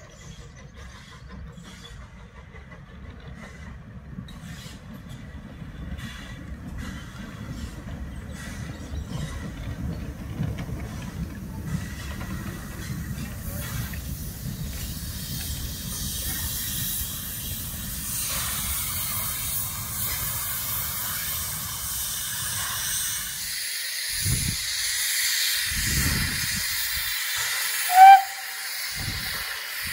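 Goods train rolling past with a low rail rumble, while the steam hiss of a small Terrier 0-6-0 tank engine grows steadily louder. A few low thumps follow, then a short whistle toot near the end, the loudest sound.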